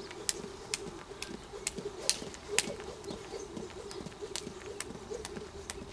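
Jump rope slapping the dirt in a steady rhythm of sharp clicks, about two a second, as it is skipped.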